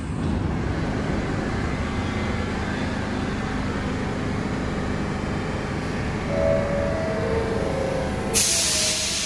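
New York City subway train rumbling along the track, with brief whining tones about six and a half seconds in. About eight seconds in, a sudden loud hiss of compressed air from the train starts.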